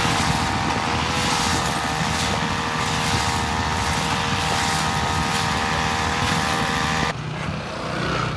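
Backpack two-stroke brush cutter engine running steadily at high revs while cutting grass. It cuts off abruptly about seven seconds in, leaving a fainter low hum.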